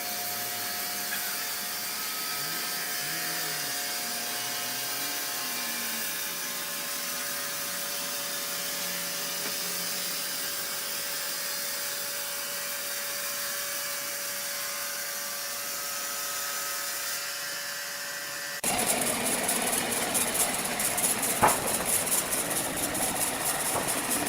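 Sawmill machinery running: a steady hiss with a faint constant hum. About eighteen seconds in it cuts abruptly to louder, rougher machine noise, with one sharp knock a few seconds later.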